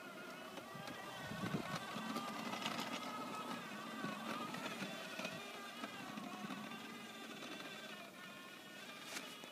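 Motor of a child's small ride-on quad (ATV) running as it drives through snow, with a whine that wavers up and down in pitch.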